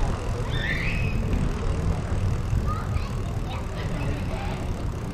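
Steady low rumble of wind and road noise from a moving e-bike, with a short rising high chirp about a second in.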